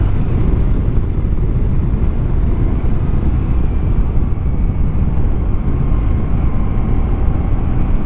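Honda ST1100 touring motorcycle cruising at a steady speed: a constant low rumble of its V4 engine mixed with wind rush.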